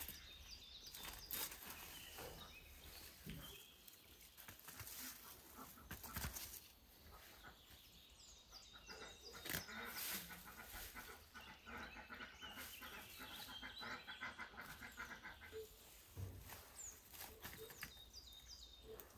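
Faint rural outdoor ambience: small birds chirping, with a few scattered knocks and a stretch of rapid rattling in the middle.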